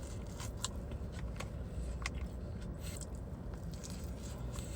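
Close-miked chewing and mouth sounds of someone eating a pambazo, soft sandwich bread with potato and chorizo filling: small wet smacks and clicks every second or so.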